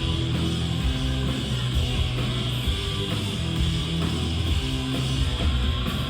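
Loud live rock music: electric guitar strumming over heavy, sustained bass notes, played through a concert sound system.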